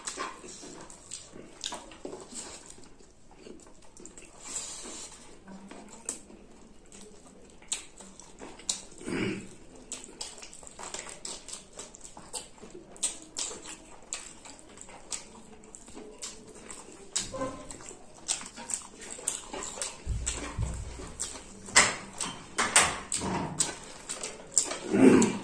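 Wet chewing and lip-smacking of two people eating rice and spicy chicken by hand, with the squelch of rice being mixed and squeezed between fingers. Irregular smacks throughout, loudest and most frequent in the last few seconds.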